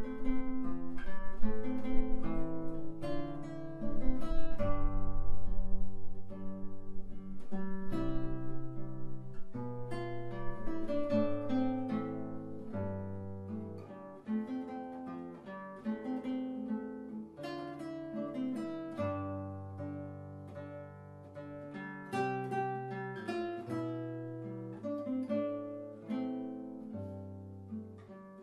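Instrumental music on solo acoustic guitar: a plucked melody over low bass notes, with some strummed chords, growing softer about halfway through.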